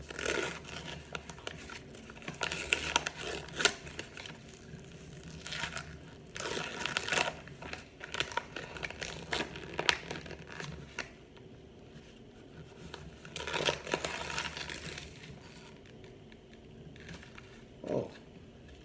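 Paper wrapping crinkling and crumpling in short, irregular bursts as it is peeled off a block of toasted, air-fried cornstarch, with one soft knock near the end.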